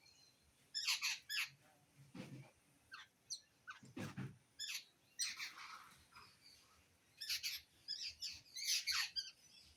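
Birds giving short, harsh chirps and squawks, one after another in quick clusters. Two low thumps sound at about two and four seconds in.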